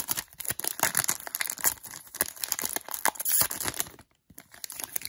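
Foil wrapper of a Pokémon trading-card booster pack crinkling and crackling as the opened pack is handled and the cards are drawn out; the crackling dies away about four seconds in.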